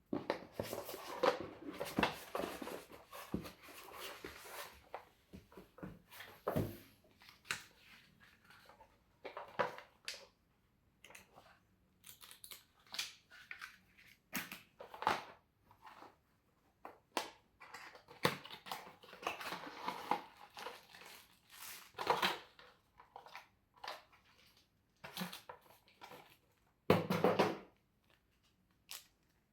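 Packaging being handled and unwrapped: crinkling, rustling and tearing in irregular bursts with short pauses and occasional sharp clicks, the loudest burst near the end.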